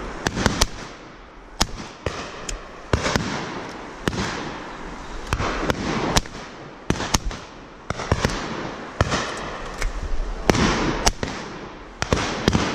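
Shotgun shots fired in quick succession by a line of guns at driven pheasants: well over a dozen bangs, some close and sharp, others farther off, each followed by a rolling echo.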